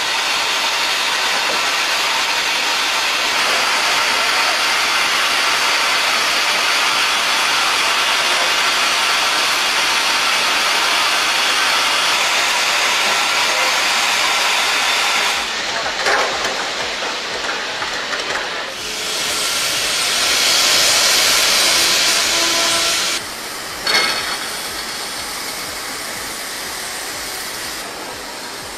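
Steam locomotives hissing: a steady rush of escaping steam that changes character a few times, brightest a little past two-thirds of the way through, then drops, with a single sharp knock soon after.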